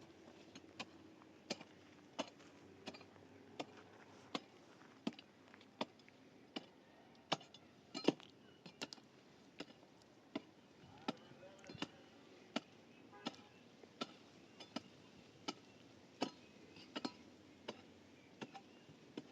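A hand tool striking in a steady rhythm, faint sharp knocks about one every three-quarters of a second.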